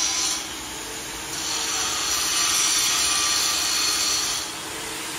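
Handheld angle grinder cutting a piece of steel: a steady, loud grinding with the motor's hum underneath. It eases off less than a second in and again near the end.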